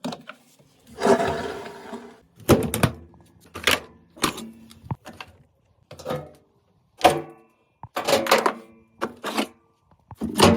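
Irregular knocks and clanks from repair work on a Samsung washing machine's drum bearings, about a dozen strikes, several followed by a short ring.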